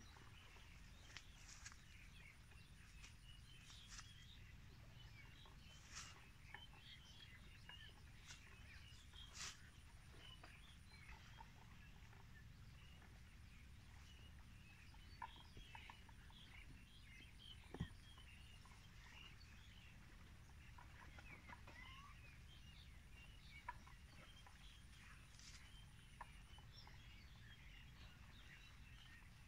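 Faint open-country ambience: many small scattered bird chirps over a low rumble, with a few sharp clicks.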